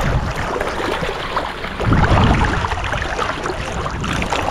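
Shallow seawater splashing and sloshing as a person wades through it, dragging a large tarpon held by the lip through the water alongside. The splashing grows louder about two seconds in.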